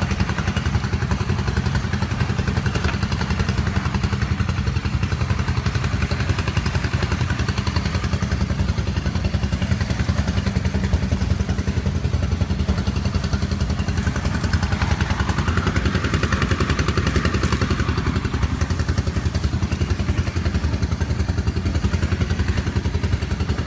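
A small engine running steadily at an even speed: a constant low rumble that does not rise or fall.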